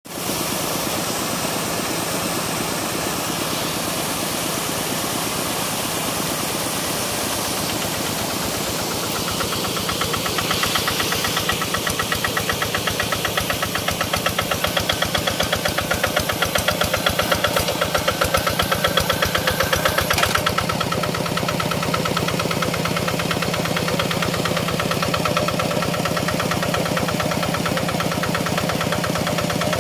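Quick Impala hand tractor's single-cylinder diesel engine running with a rhythmic chug; about ten seconds in it grows louder and pulses more strongly, then settles back to a steady run about twenty seconds in.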